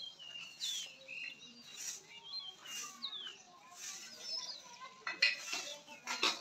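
Small birds chirping and calling outdoors in short notes that slide up and down, overlapping one another. A few brief noisy bursts come near the end.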